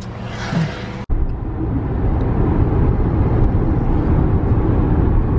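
Road and wind noise inside a moving car's cabin at speed: a loud, steady rumble that starts abruptly about a second in.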